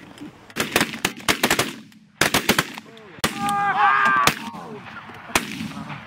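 Several hunters' shotguns firing at a flock of ducks overhead: a rapid, overlapping volley of shots over about two seconds, followed by a few scattered single shots.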